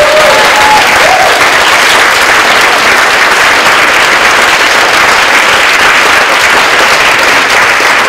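Audience applauding, a loud, steady round of clapping.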